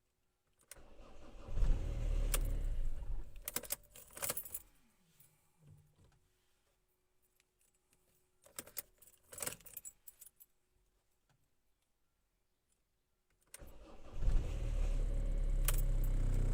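Ford diesel engine being started cold and hard to start. About a second in it cranks and catches, runs for a couple of seconds, then dies, its pitch falling away. After a few clicks of the key, it is cranked again near the end, catches and keeps running steadily.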